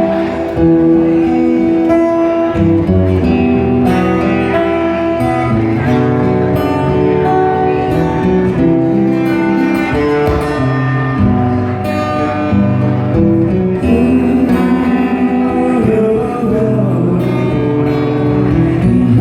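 Instrumental break of a live band, led by guitar playing the melody over a steady accompaniment.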